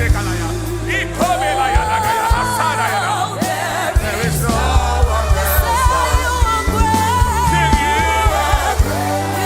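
Live gospel worship music: a band with steady bass and regular drum hits under a held, wavering lead melody.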